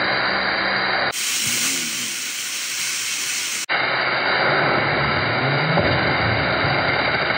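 A 60,000 PSI abrasive waterjet stream blasting against spinning rollerblade wheels: a loud, steady hiss that changes abruptly twice. Beneath it a low whine rises in pitch about five seconds in as the wheels spin up.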